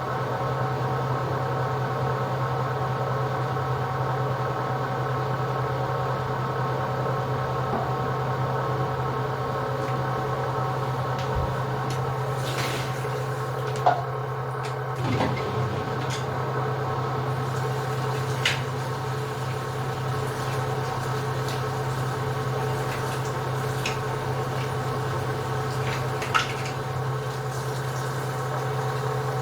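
LG washing machine running its spin cycle: a steady hum at constant speed, with a few brief sharp ticks in the second half.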